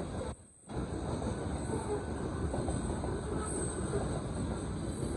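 Freight train's covered hopper cars rolling past on the rails, a steady rumble of wheels and cars. The sound cuts out briefly about half a second in.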